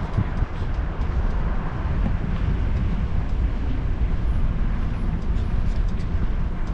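Steady low rumble of a vehicle driving slowly, road and engine noise with no distinct events.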